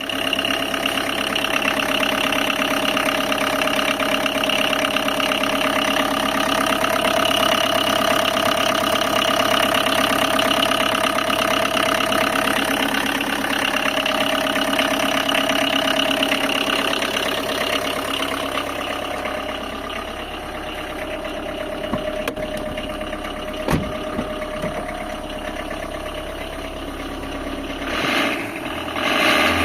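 Tata Indica car engine idling with a fast, even rhythmic noise, the abnormal engine noise the owner presents as a problem. It gets somewhat quieter about two-thirds of the way through, with a single sharp knock shortly after.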